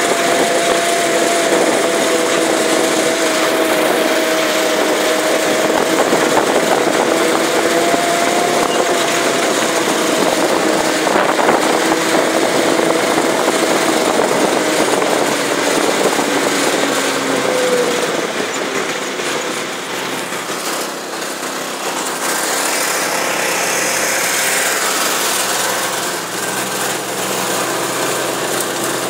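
Small UTV engine running steadily as the vehicle drives across a field, a constant engine hum for the first half. About two-thirds of the way through the engine tone dips and fades under a rougher rushing noise.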